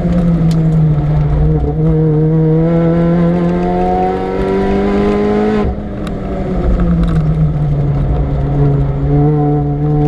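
Supercharged Mini Cooper R53's four-cylinder engine under hard acceleration, its pitch climbing steadily for about five seconds. A little past halfway the sound cuts off suddenly, as in a gear change or a lift off the throttle, then the revs build again.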